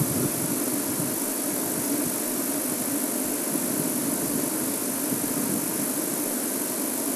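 Game-drive vehicle's engine idling: a steady low rumble with hiss that keeps an even level throughout.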